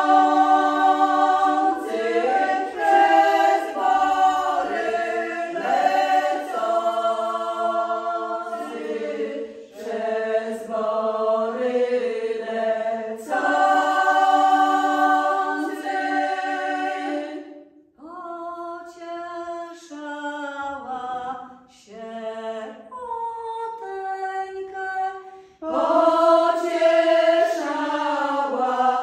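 A small women's vocal group singing an old Polish folk song unaccompanied, in several voices with long held notes. Partway through, the singing thins and grows quieter for several seconds before the full group comes back near the end.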